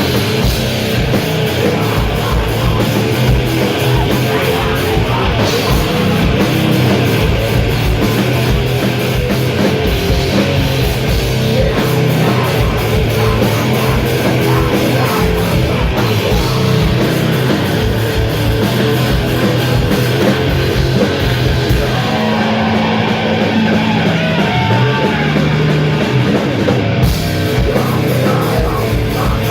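Sludge metal band playing live: heavy distorted guitars, bass and pounding drums. About 22 seconds in, the drums and cymbals drop out, leaving held distorted guitar and bass notes with a pitch bend, and the full band crashes back in about five seconds later.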